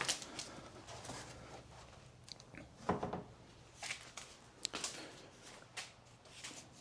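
Faint, scattered clicks and knocks of a plastic engine cover being handled as it is pulled up off its push-fit mounting nubs and set aside.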